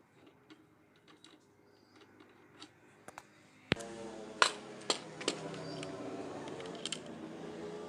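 Scattered light clicks and taps. About halfway through, a sharp click is followed by a steady hum, with a few sharp clinks over it.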